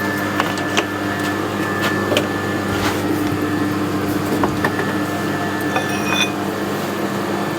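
Metal lathe running and turning down the edge of a 6 mm steel plate disc: a steady motor hum with a thin high whine from the cut and scattered sharp clicks.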